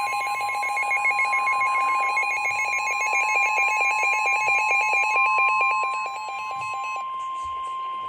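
Weather-radio alert attention tone: one long steady beep near 1 kHz announcing a warning, overlaid with a fast trilling electronic alarm that stops about seven seconds in; the long tone cuts off near the end.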